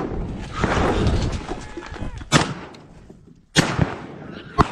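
Three loud gunshots from a hunting gun, fired at a wild boar. They come about a second apart over the second half, after a stretch of loud rushing noise.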